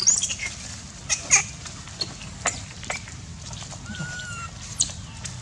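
Young long-tailed macaques giving short, high-pitched screeches and squeals, about six in quick succession, the loudest a little over a second in.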